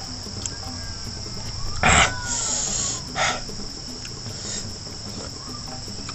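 Insects chirring steadily in a rice field, with two short, loud sucking slurps about two and three seconds in: snails being sucked out of their shells.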